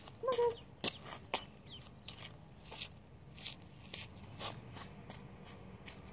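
Sneaker footsteps scuffing on a gritty asphalt driveway, irregular steps and scrapes. A short pitched call sounds once about a third of a second in.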